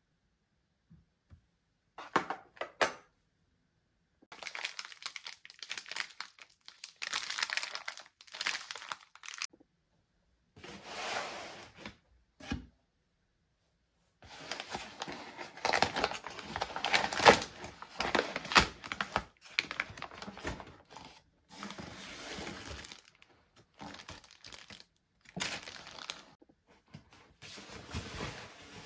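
Wrapping being crumpled and torn by hand in irregular bursts, near-continuous in the second half.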